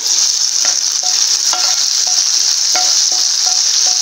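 Hot ghee with fried cashews and raisins sizzling as it is poured from a pan into coconut milk payasam: a steady high hiss. A wooden spatula scrapes lightly against the nonstick pan a few times.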